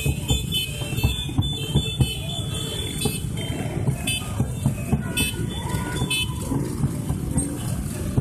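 Many motorcycle engines running in a slow, crowded convoy, with horns sounding now and then.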